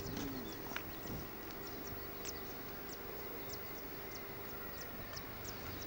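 Small birds chirping: short, high, falling notes a few times a second, over faint steady background noise and a low hum.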